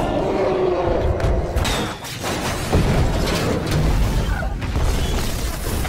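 Movie soundtrack of an action scene: orchestral score mixed with booms and crashing impacts.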